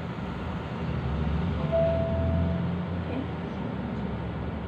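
Steady low rumble that swells about a second and a half in and eases off again, with a short single steady tone near the middle.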